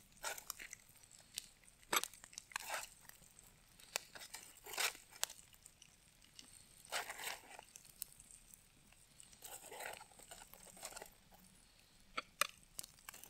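Knife and fork cutting a steak on a paper plate: soft, irregular scrapes and clicks, with a few longer scrapes among them.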